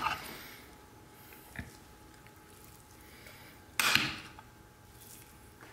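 Mostly quiet, with a small tick about one and a half seconds in and a brief wet squish about four seconds in, from gloved hands working marinade under raw chicken skin.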